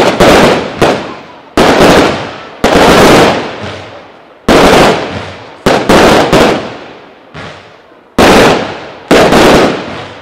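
Pyro Art Hati fireworks battery firing: about a dozen loud bangs at irregular intervals as its shells burst overhead, each trailing off in an echo.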